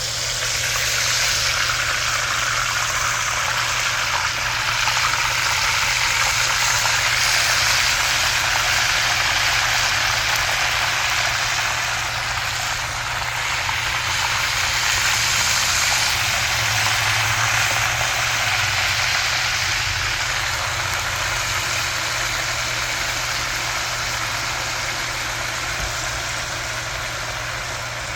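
Whole parrot fish sizzling steadily in hot oil in a frying pot, the sizzle starting loud as the fish goes in, over a steady low hum.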